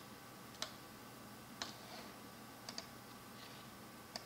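Computer mouse clicking: two single clicks, then two quick double clicks, over a faint steady hum.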